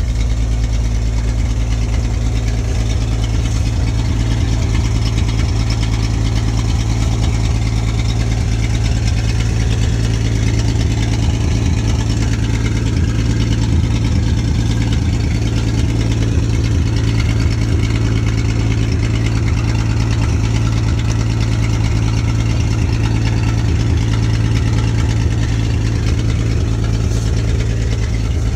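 1950 Studebaker fire truck's engine idling steadily, a low, even running sound with no revving.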